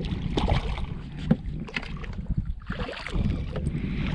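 Wind rumbling on the microphone, with scattered knocks and splashes as a hooked channel catfish is brought to the boat and lifted aboard by hand.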